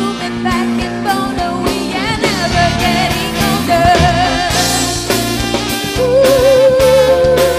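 Live pop band playing: saxophone and a female singer's voice over drum kit, electric bass and electric guitar, with a long held, wavering note near the end.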